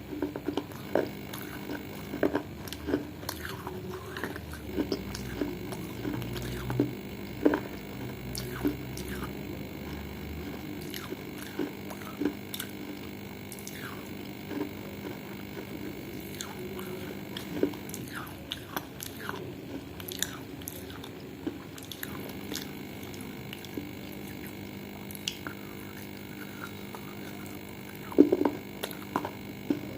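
Close-up chewing and crunching of baked edible clay and clay-pot pieces: irregular crisp crunches between the teeth, with a cluster of louder bites near the end.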